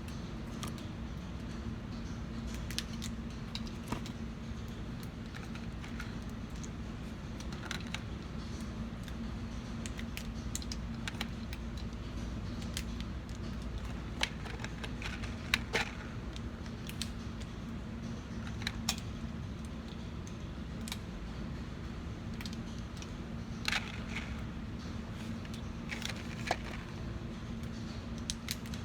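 Irregular small metallic clicks of 9mm rounds being pressed one by one into a Glock 19 magazine, over a steady low hum.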